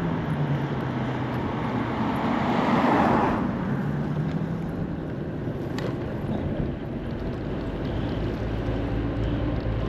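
Wind and road noise from riding an electric moped, a steady rush with no engine sound. A louder rush builds and then drops away about three seconds in.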